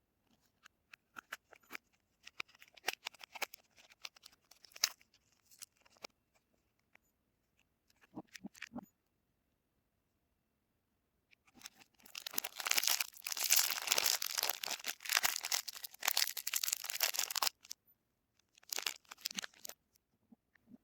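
Soap wrappers being torn and crinkled open by hand. Scattered crackles come first, then about five seconds of dense, loud tearing and crinkling just past halfway, and a short burst near the end.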